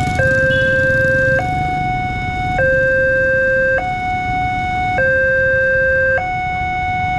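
Railway level-crossing warning alarm from a horn loudspeaker on the signal post: an electronic two-tone signal alternating between a lower and a higher tone, each held a little over a second, warning that a train is approaching as the barrier comes down. Road traffic rumbles underneath.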